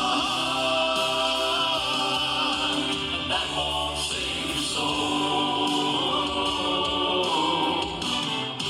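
Closing bars of a gospel song: several choir-like voices hold long notes over a steady accompaniment, with no words.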